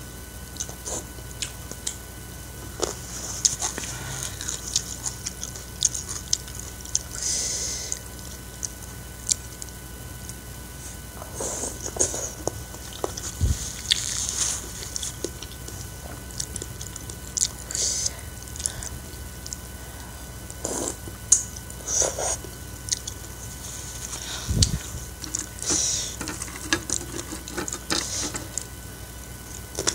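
A person eating instant noodles in soup: wet chewing with many small mouth clicks and smacks, broken every few seconds by a short hissing slurp of noodles.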